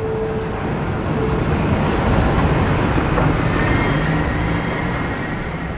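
Low, steady rumble of heavy vehicle movement, swelling about two seconds in and easing off near the end.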